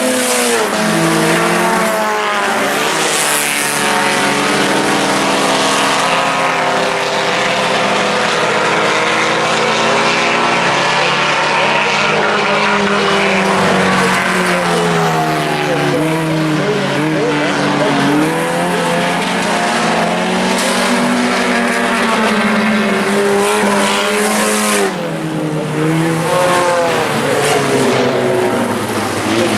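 Several four-cylinder IMCA Sport Compact race cars racing as a pack, their engines revving up and falling off again and again as they run through the turns, with more than one engine heard at once.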